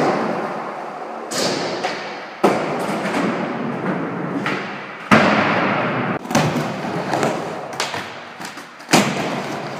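Skateboard wheels rolling over wooden ramps, broken by about five sharp thuds and clacks of the board hitting the ramp surfaces, the loudest about five seconds in and another near the end.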